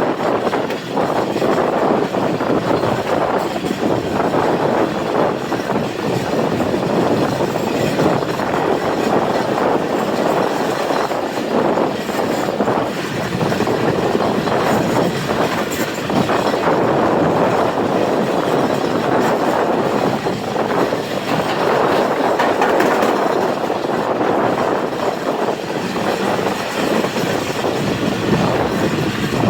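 Passenger train coaches running along the track, with a steady loud rumble and the wheels clattering over the rails.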